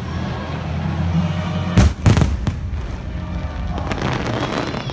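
Aerial fireworks bursting: two loud booms about two seconds in, a quarter second apart, then a dense run of crackles near the end, with music playing underneath.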